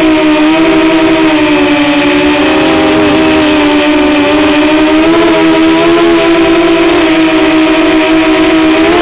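Racing quadcopter's brushless motors and propellers whining loudly, heard through the onboard action camera; the pitch dips slightly and rises again as the throttle changes, climbing near the end.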